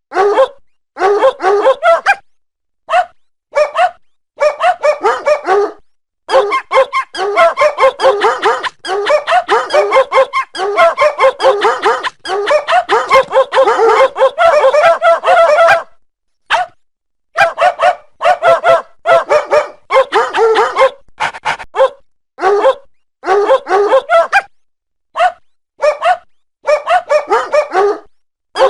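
A dog's short pitched barks and yips strung together in quick sing-song runs of notes, in phrases broken by sudden brief silences.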